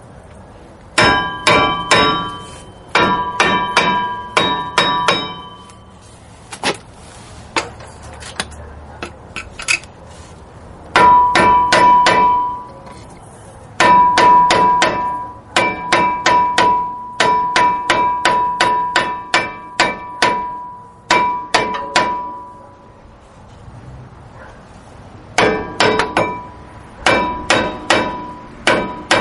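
A 2004 Ford Expedition front brake rotor struck repeatedly in runs of quick blows, several a second with short pauses between runs, each blow leaving the rotor ringing. The rotor is being knocked loose from the wheel hub.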